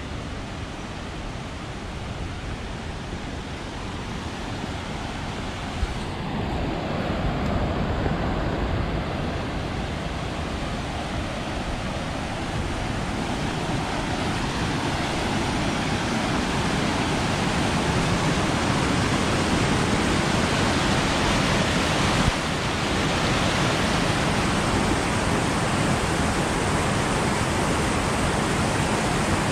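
Mountain creek rushing over rocks in small cascades, a steady rush of water that grows gradually louder, with a couple of brief knocks.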